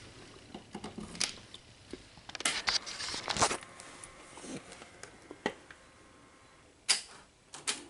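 Handling clicks, knocks and a rustle of cloth. Then a faint steady whine from a motor inside the Sony SL-HF400 Betamax VCR, running just after the machine is plugged in and powered up with its top cover off.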